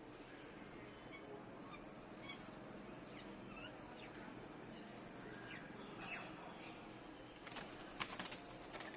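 Birds chirping faintly in short, scattered calls, with a quick run of sharp clicks or wing flaps near the end.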